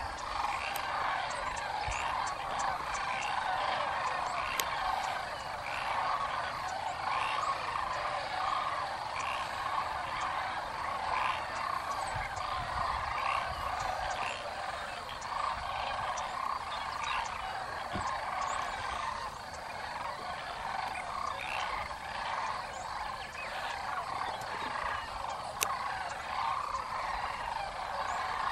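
Dense chorus of many wetland animals calling at once from the flooded marsh, their calls overlapping into one steady din.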